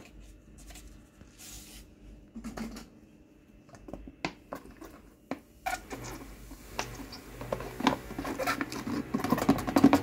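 Light clicks, knocks and scraping of a plastic bottle handled in a front-loading washing machine's plastic detergent drawer, growing busier and louder near the end.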